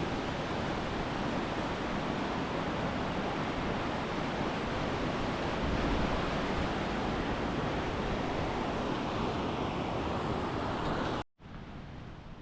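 Steady rush of flowing water, loud and even. It cuts off abruptly about eleven seconds in, and a much quieter hiss follows.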